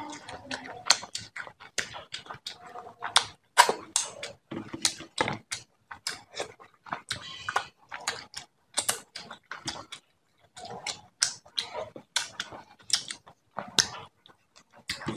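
Close-miked eating sounds: wet chewing and lip smacks, with fingers squeezing and mixing rice and fish curry on a metal plate, coming as a quick, irregular run of sharp smacks and clicks.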